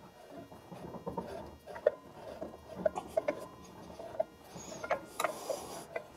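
Irregular small metallic clicks and scrapes as the T-handle of a clutch spring compressor tool is turned on its threaded shaft over an Arctic Cat–style snowmobile secondary clutch. There is a brief scraping rush about five seconds in.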